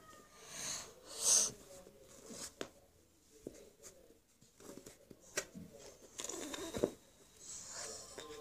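Small handling sounds of slime and plastic tubs: scattered soft clicks and rustles, with a short hiss about a second in.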